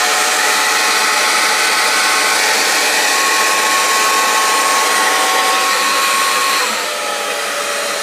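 Gorgio handheld hair dryer running on its second, high-speed setting: a steady rush of air with a motor whine. About seven seconds in, the whine drops in pitch and the air gets a little quieter as the motor slows to a lower speed.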